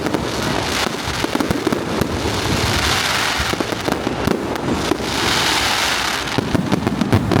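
Aerial fireworks display: a rapid run of pops and bangs, with two swells of dense hissing crackle, one about two seconds in and one about five seconds in.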